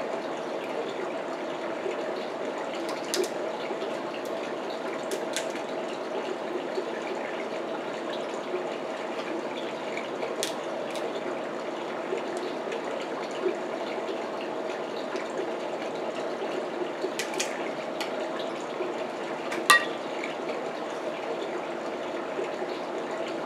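King crab leg shells cracking and snapping as they are broken apart by hand: about five sharp cracks, the loudest near the end. They sit over a steady rushing background noise.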